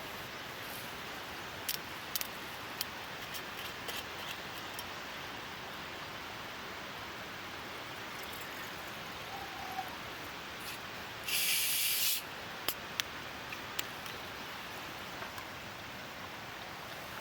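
Steady hiss of light rain with scattered sharp ticks and pops. About eleven seconds in comes a loud hiss lasting about a second.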